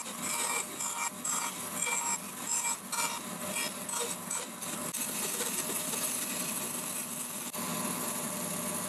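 Bandsaw running while it cuts a wooden disc on a circle-cutting jig, with uneven pulses as the blade bites through the wood for the first few seconds, then running steady as the cut finishes.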